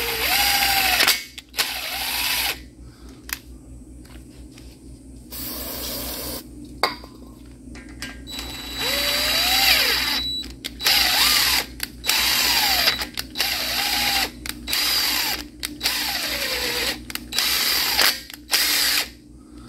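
A cordless DeWalt drill-driver spinning a thread chaser through the head bolt holes of a V8 engine block, cleaning out grease and debris. It runs in about a dozen short spurts, its motor pitch rising and falling each time it speeds up and slows.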